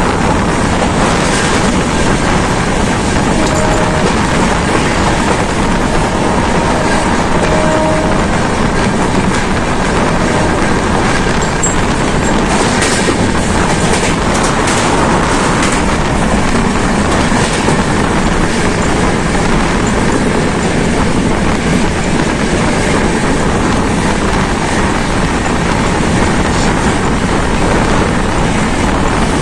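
Passenger train running at speed, heard from the open door of its coach: a steady rumble and clatter of wheels on rail. About halfway through, a stretch of sharper rattling as the coach crosses a bridge.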